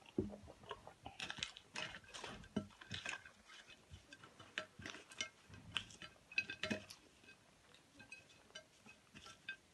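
Eating sounds: fingers picking fries off a ceramic plate and crunchy chewing, with scattered light clicks, crunches and clinks, thinning out after about seven seconds. A soft knock comes at the very start.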